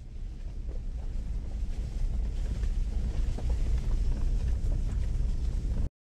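Car driving along a rough, leaf-covered dirt road, heard from inside the cabin: a low rumble of engine and tyres with light knocks, growing louder over the first two seconds and cutting off suddenly near the end.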